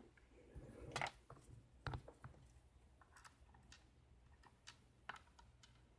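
Faint, scattered clicks and ticks of small metal lock parts being handled on the bench, the two clearest about one and two seconds in, over a low steady hum.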